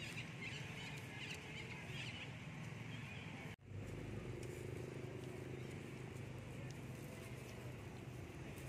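Outdoor background sound: a steady low hum with faint, wavering high chirps over it in the first few seconds. The sound cuts out for an instant about three and a half seconds in.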